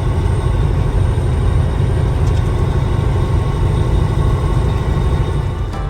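Steady low rumble of engine and road noise inside a moving vehicle's cab. Music cuts in at the very end.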